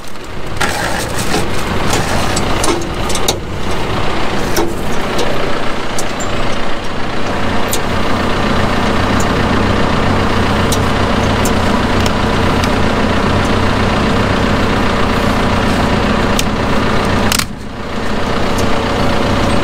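Large diesel tractor engine idling steadily, with a few small clicks and knocks over it; the sound drops out briefly near the end.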